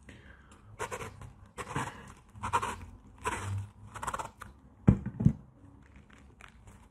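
Close-miked breathy mouth sounds and breaths, coming as short puffs about once a second. About five seconds in, two sharp knocks a split second apart are the loudest sounds, followed by faint small ticks.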